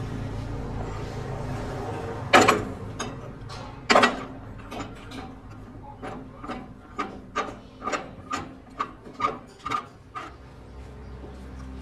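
Two loud knocks, then a run of lighter, evenly spaced taps, about two or three a second, over a low steady hum.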